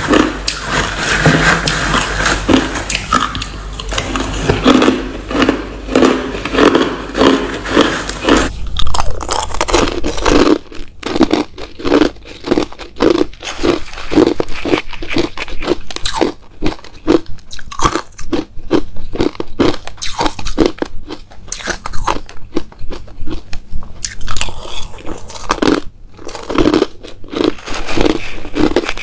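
A person biting and chewing mouthfuls of crushed ice: a dense, loud run of crisp crunches, falling into a regular chewing rhythm after about ten seconds.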